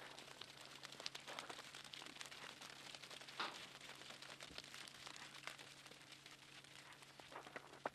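Faint, irregular pattering and crunching of a flock of sheep and goats' hooves on slush and snow, with a low steady hum underneath.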